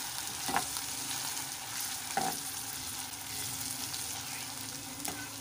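Onions and ginger-garlic paste sizzling in hot oil in a metal pot, stirred with a metal spoon that scrapes and knocks against the pan a few times.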